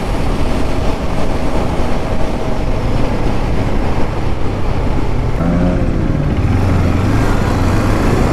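Motorcycle cruising at highway speed, about 120 km/h: wind rushing over the helmet-mounted mic with the engine running underneath. The engine note comes through more clearly in the last few seconds.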